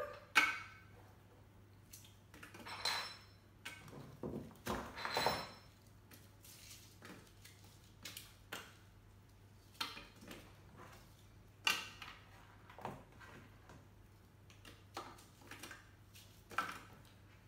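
Pieces of frozen melon broken off by hand and dropped one at a time into a Thermomix TM5's stainless steel bowl: scattered, irregular clinks and knocks.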